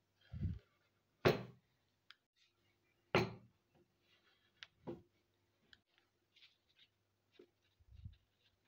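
Wooden cutting board of boiled potato wedges knocking against a tabletop as it is handled: a few separate knocks, the loudest about a second and about three seconds in. Soft dabbing and rustling of a towel on the wedges near the end.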